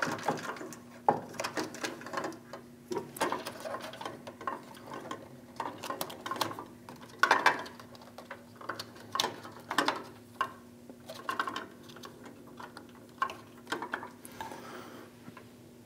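Irregular clicks, taps and light rattles of hands fitting a vending machine's plastic selection switch membrane assembly and its cables into the door, over a faint steady hum.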